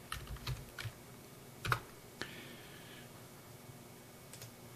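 Computer keyboard keystrokes: a few quick taps in the first second, a louder single key press a little later and one more near the end.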